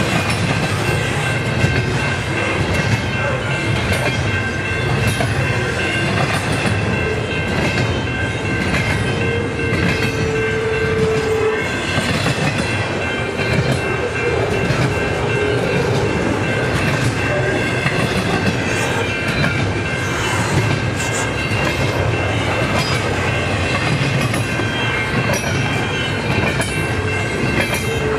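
Double-stack container train's well cars rolling steadily past close by: a low rumble and irregular rattling of wheels and cars on the rails, with a thin, steady high whine running through it.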